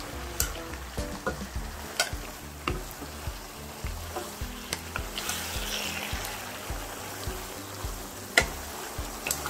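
Thin-sliced pork belly and bean sprouts sizzling in a pan as they are stir-fried with a wooden spatula, which knocks against the pan now and then. The sizzle swells about halfway, and the loudest knock comes near the end.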